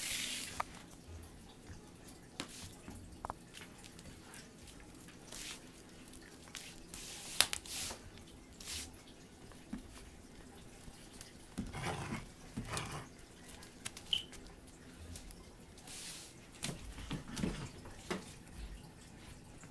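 A puppy playing: scattered light taps, clicks and rustles, with a few short, rougher low sounds around the middle and near the end.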